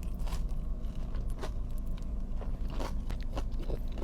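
Chewing a crispy fried mozzarella stick, with irregular crunches of the coating spread throughout.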